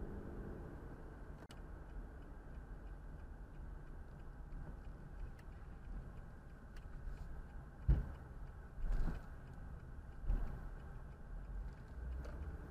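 Car driving along a road: steady low rumble of engine and tyres, with faint scattered ticks. Three dull thumps come about eight, nine and ten seconds in.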